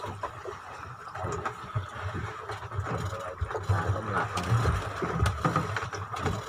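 Small outboard fishing boat at sea: an uneven low rumble of boat and water noise with a few light knocks.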